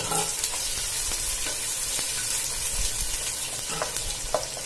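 Freshly added sliced onions sizzling in hot oil in a nonstick pot: a steady high hiss, with scrapes and small taps as a wooden spatula stirs them.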